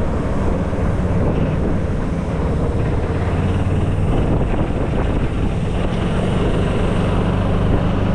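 Golf cart driving along a paved road: a steady running hum with road noise and wind on the microphone.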